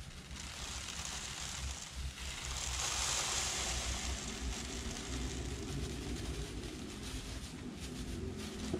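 Dry rice grains pouring into a plastic radiator coolant reservoir, a steady rushing hiss of grains that is loudest about three seconds in and eases off toward the end, over a low steady hum.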